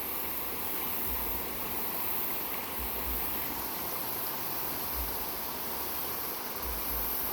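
Steady rushing hiss of flowing water, with a few brief low rumbles.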